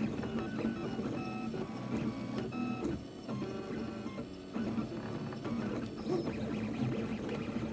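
Anet A8 3D printer at work: its stepper motors sing in short pitched tones that jump from note to note as the print head changes moves, over a steady low hum.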